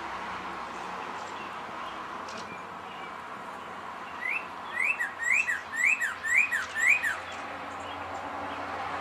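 Northern cardinal singing a run of about six slurred whistled notes, each rising then dropping, roughly two a second, starting a few seconds in. A steady background hiss runs underneath.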